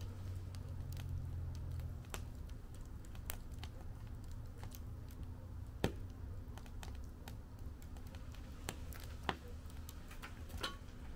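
Wood fire in a fire pit crackling, with scattered sharp pops at irregular intervals, the loudest about six seconds in. A low hum stops about two seconds in.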